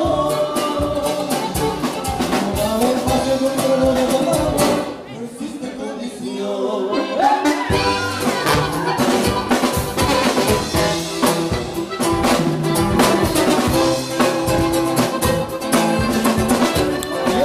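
Live bandeño band music with brass and drums. The band drops back briefly about five seconds in and comes back in full about two seconds later.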